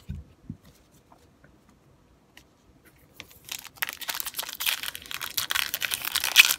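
Foil wrapper of a 2013 Bowman football card pack being torn open and crinkled. It starts about three seconds in as a dense, crackling rustle that goes on to the end, after a quiet start with a soft thump or two.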